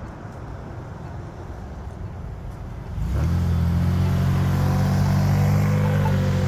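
Street traffic noise. About three seconds in, a nearby motor vehicle's engine comes in loud and settles into a steady low hum.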